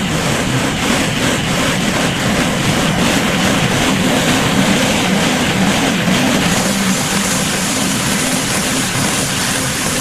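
Pressure washer running with a steady low hum under an even hiss of spray hitting a concrete driveway; the hiss turns brighter about six seconds in.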